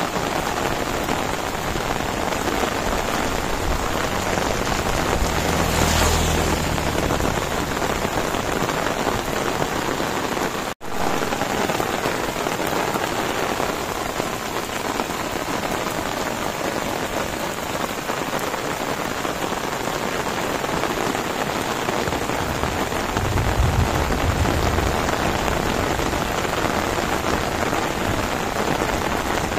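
Heavy rain falling on rice fields and a concrete path, a steady dense hiss. There are two low rumbles, one about six seconds in and one a few seconds before the end. The sound drops out for an instant about eleven seconds in.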